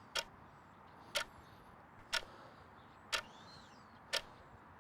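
Clock ticking steadily, about once a second: five sharp ticks.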